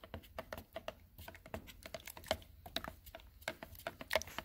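Wooden stir stick clicking and scraping against the sides of a plastic mixing cup while stirring sealer mixed with its activator: a run of quick, irregular light clicks.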